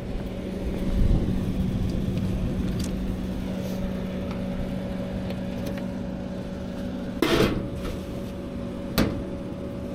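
Steady machine hum with two held tones. About seven seconds in there is a brief rattle of handling, and a sharp click near the end.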